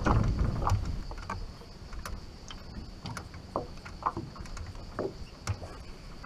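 Light knocks and taps on a metal jon boat's deck and gear as anglers move and handle tackle, after a low rumble in the first second. A faint steady high whine runs underneath.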